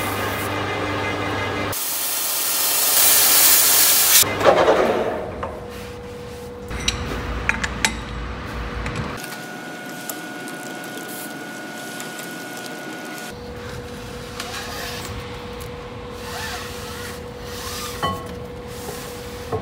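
Hand file rubbing on a freshly threaded steel hydraulic cylinder rod spinning in a lathe, a loud rasping hiss over the first few seconds. After that, a steady hum with scattered clinks and knocks as the rod is handled at the lathe.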